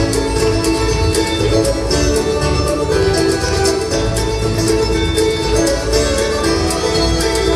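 Bluegrass band playing the opening of an up-tempo song: two banjos picking fast, steady rolls over upright bass, with fiddle, mandolin and acoustic guitar, no singing yet.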